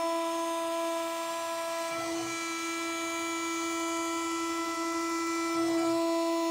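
CNC router spindle and end mill milling a slot in aluminium plate: a steady whistling whine with a stack of overtones, shifting slightly about two seconds in and again near the end.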